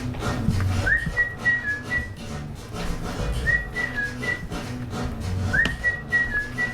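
A whistled tune: a short phrase that swoops up into a few quick high notes, heard three times, over a low background beat.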